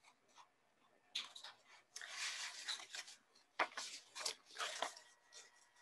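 Paper pages being leafed through and rustled close to a microphone: a run of crinkling noise starting about a second in, followed by a few sharp page flips.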